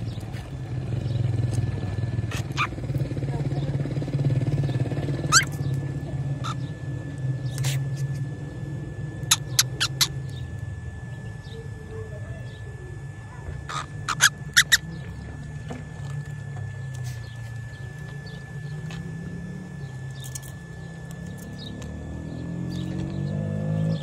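A cockatiel in a wire cage giving short, sharp chirps, singly and in quick runs of three or four, over a steady low rumble of road traffic; a vehicle's engine rises in pitch near the end.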